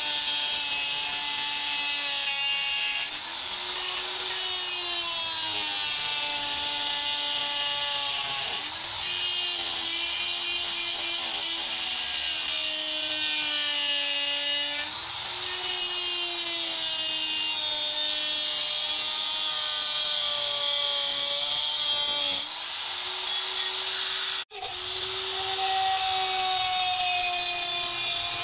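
Handheld electric power tool spinning a pink mounted grinding stone against a steel knife blade: a steady motor whine over a grinding hiss, its pitch sinking under load and jumping up briefly every five or six seconds as the pressure eases.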